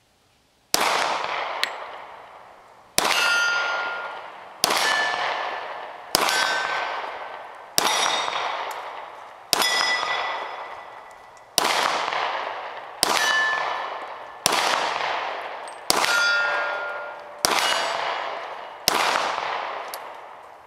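Twelve pistol shots from a Springfield XD-40 (.40 S&W), about one every one and a half seconds. Each shot is followed by the ringing of a hit steel target, and the pitch of the ring changes from shot to shot as different plates are struck.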